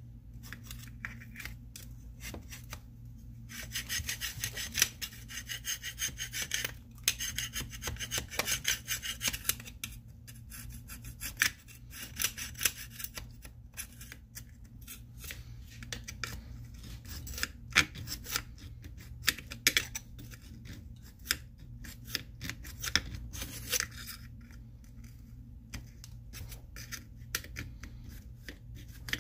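Quick back-and-forth rubbing strokes from cleaning the metal housing of an old GE bench grinder. They come in bursts with short pauses, and the longest run of fast strokes falls between about four and ten seconds in.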